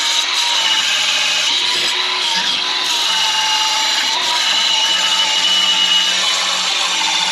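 Angle grinder grinding steel, cleaning up the old weld area: a steady high whine whose pitch wavers slightly as the disc is pressed into the metal.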